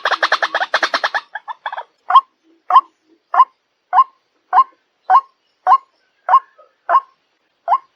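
White-breasted waterhen (ruak-ruak) calling: a fast run of rapidly repeated notes that breaks off about a second in, then single short calls repeated steadily, about one every 0.6 seconds.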